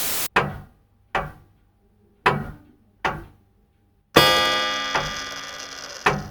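A short keyboard musical sting: four struck piano-like notes in two pairs, each dying away, then a long ringing chord that fades slowly and one last short note. A brief burst of radio static cuts off at the very start.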